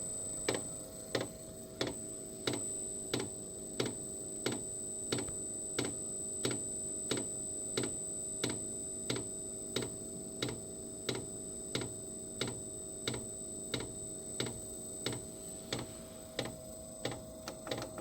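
Diesel air heater's fuel dosing pump ticking steadily, about one and a half clicks a second, over a steady hum. The pump is metering diesel into the combustion chamber while the glow plug heats it, before the fuel ignites.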